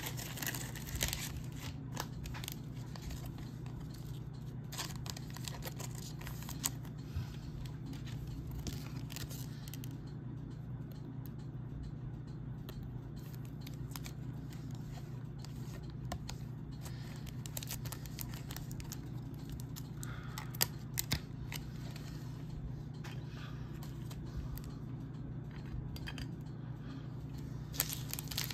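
Foil trading-card pack wrappers being torn open and crinkled, with cards handled, in scattered rustles and clicks over a steady low hum. The handling gets busier near the end.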